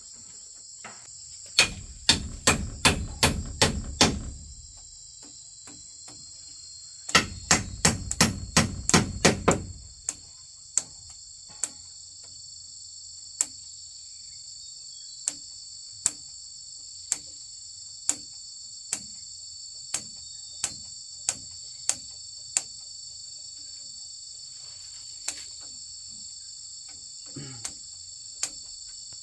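Hammer blows on wood: two runs of quick strikes, about three a second, then single lighter taps about a second apart, over a steady high insect chorus.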